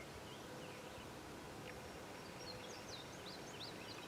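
Faint wild birds chirping over a steady outdoor background hiss, with a quick run of short, high sweeping notes about three seconds in.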